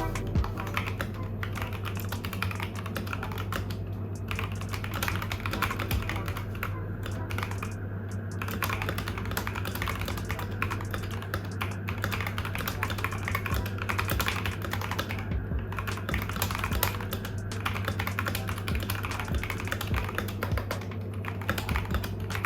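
Continuous fast typing on a 1st Player MK980 mechanical keyboard with factory-lubed Gateron switches and PBT keycaps, a dense stream of key clacks. The case is damped with mute cotton.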